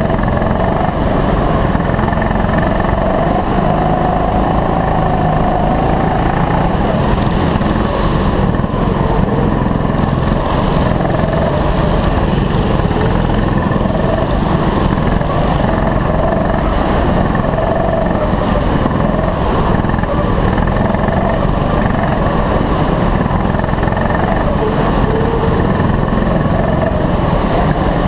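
Onboard sound of a 6.5-horsepower rental kart's small petrol engine running hard under racing throttle, its pitch rising and falling as the driver goes on and off the throttle through the corners, with the engines of the karts just ahead mixed in.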